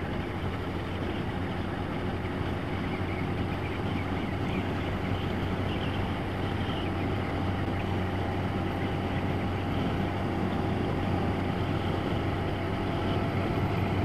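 A Yamaha motorcycle's engine running steadily at cruising speed, with wind and road noise on the bike's camera, getting slightly louder toward the end.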